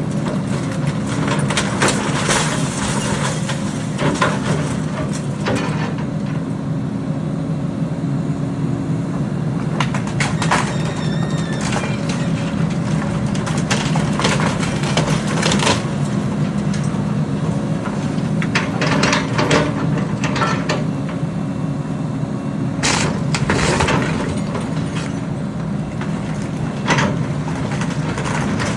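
An excavator's diesel engine runs steadily while wood cracks and breaks in repeated sharp snaps, with a brief creaking squeal partway through: a wooden structure being crushed and torn apart.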